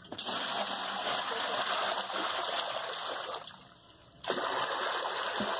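Water pouring and splashing into a shallow concrete tank, a steady rush that drops away for about a second a little past halfway and then starts again.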